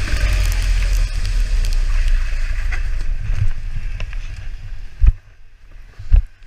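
Go-kart engine and wind rumbling on the kart-mounted camera's microphone over a wet track, fading as the kart slows. Near the end two heavy thumps about a second apart, knocks on the camera as it is moved.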